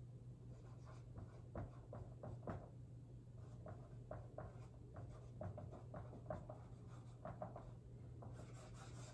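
Dry-erase marker writing on a whiteboard: a run of short, faint strokes as the letters are formed, turning to a longer continuous rubbing stroke near the end. A steady low hum sits underneath.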